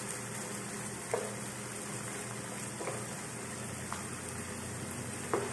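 Chicken pieces with onion and ginger frying in oil in a nonstick pan, a steady sizzle. A wooden spatula stirs them and knocks against the pan four times.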